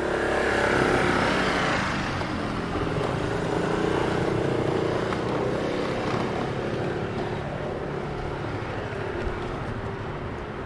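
A motor vehicle passing along a city street, loudest in the first second or two and then slowly fading.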